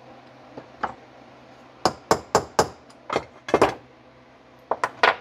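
Light metal-on-metal hammer taps driving a part into a cast Marvel Schebler carburetor body, about ten sharp taps in clusters: four quick ones around two seconds in, a few more a second later, then three near the end.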